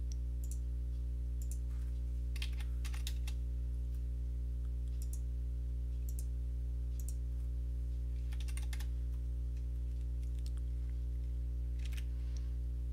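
Computer keyboard and mouse clicks, scattered taps, some in quick clusters, while dimension values are entered in CAD software. Under them runs a steady low electrical hum.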